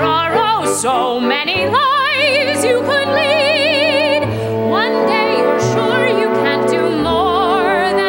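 Theatre orchestra playing musical-theatre show music, sustained string lines with vibrato, with a rising run about halfway through.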